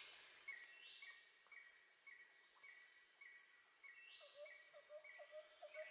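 Near silence, with a faint high chirp repeating about twice a second.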